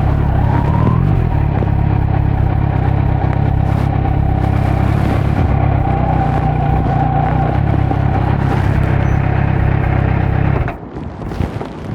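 Kawasaki Z900's inline-four engine, breathing through a Leo Vince muffler with no dB killer, running at steady revs under way. Near the end the throttle closes and the sound drops suddenly, with crackling pops from the exhaust on the overrun.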